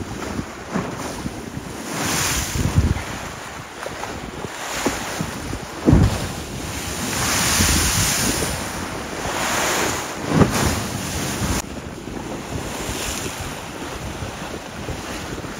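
Choppy lake waves sloshing and breaking, with wind buffeting the microphone; the rush swells and fades every few seconds. A few sharp low thumps, the strongest about six seconds in and again about ten seconds in.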